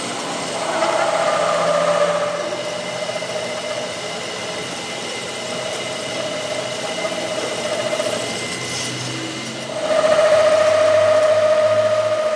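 A machine tool running with a steady, wavering whine. It comes and goes in spells and is loudest near the end.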